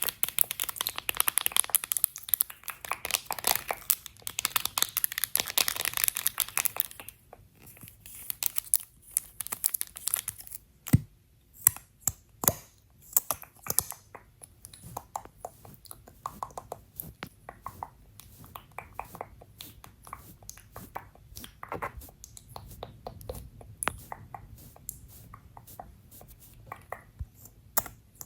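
Makeup items and their packaging being handled: dense crinkling and rustling for about the first seven seconds, then scattered taps and clicks.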